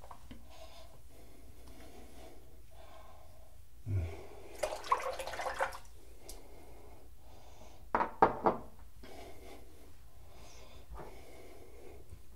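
Handling noises at a bathroom counter over faint room tone. There is a soft thump about four seconds in, then a second or so of rustling and clattering, and two or three sharp knocks a few seconds later.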